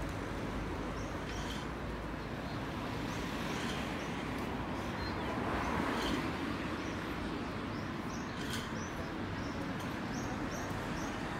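Street ambience: a steady hum of road traffic with small birds chirping now and then in short high calls, and one vehicle passing a little past the middle.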